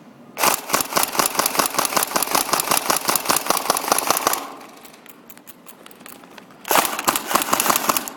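Airsoft electric gun firing full-auto in two long bursts, a rapid even rattle of shots: the first about four seconds long, the second shorter, starting near the end.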